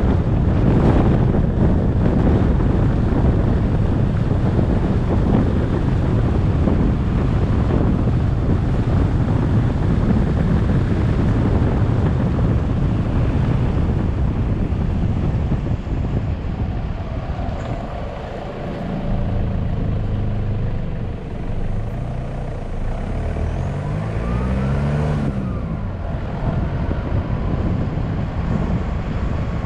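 Car driving, with wind and road rumble. It eases about halfway through as the car slows, and the engine's hum then comes through, with a brief rise and fall in pitch a few seconds before the end.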